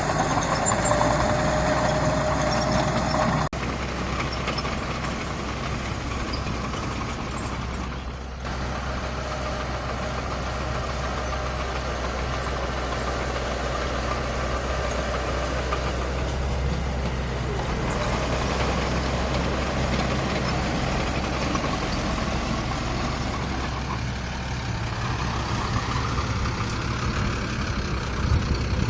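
Heavy diesel machinery running steadily, a low engine rumble with a faint whine over it for the first few seconds. The sound changes abruptly about three and a half seconds in.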